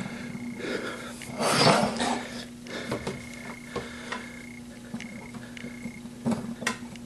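A bent steel horseshoe handled on a workbench: scattered knocks and scrapes of metal on the bench top, the loudest a longer rushing scrape about a second and a half in, over a steady low hum.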